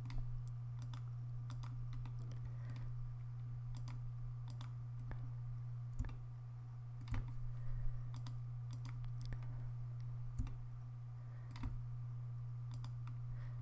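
Irregular computer mouse clicks as faces are picked on screen, over a steady low hum.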